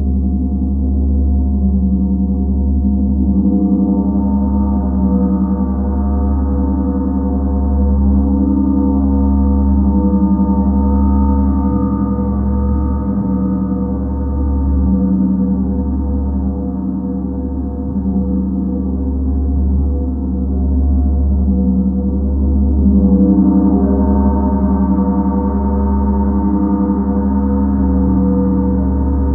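Planetary gong ringing in a continuous wash of many overlapping tones, with a deep low hum and slow pulsing beats. It grows brighter about three-quarters of the way through.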